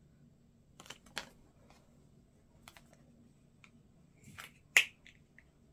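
Scattered light clicks and rustles of small plastic toy parts and a paper leaflet being handled while the parts are fitted together, with one sharper click about five seconds in.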